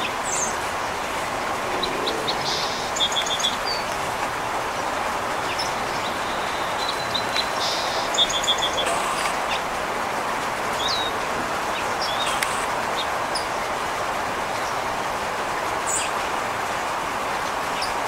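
Small songbirds calling: scattered sharp high chips and a few short, quick runs of repeated notes, over steady outdoor background noise.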